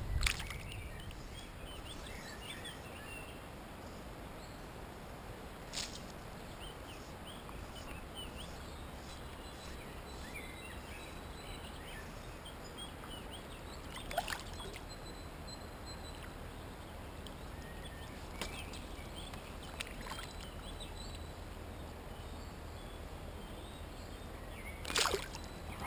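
Quiet river ambience with a low steady rumble and faint high chirps, broken by a few short water splashes from handling fish in shallow water: the loudest right at the start as a chub is let go, and again near the end as a small fish is held up over the water.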